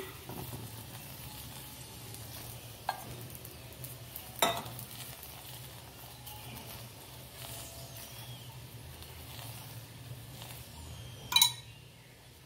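Ghee sizzling softly on a hot tawa as a steel spoon spreads it over a puran poli, with a few sharp metal clicks, the loudest near the end.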